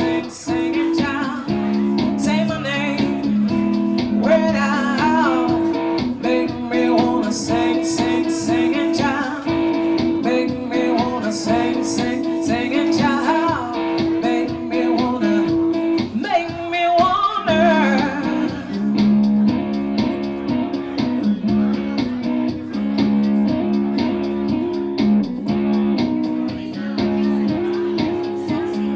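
Live solo guitar playing a repeating figure, with a voice singing gliding phrases over it.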